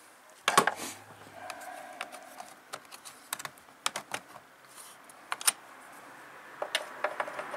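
Scattered light clicks and clacks as hands handle the hard plastic housing of a chainsaw, with one louder knock about half a second in.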